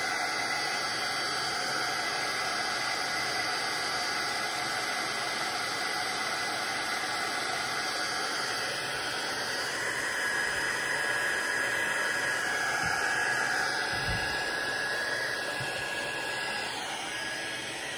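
Handheld craft heat gun running steadily, a rush of air with a faint whine over it, drying wet glue on a paper page. It gets a little quieter near the end.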